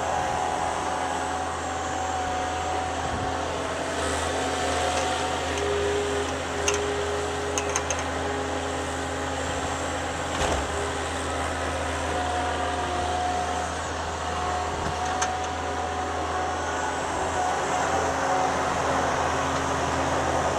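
Thomas 153 skid steer engine running steadily under work as the loader moves snow. A few short knocks come through the drone.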